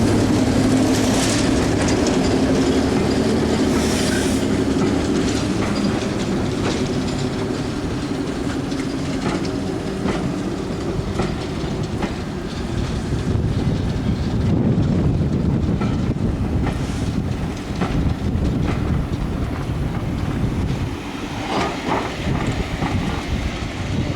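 A train passing on the rails. A steady engine hum fades over the first few seconds, then the wheels click over the rail joints.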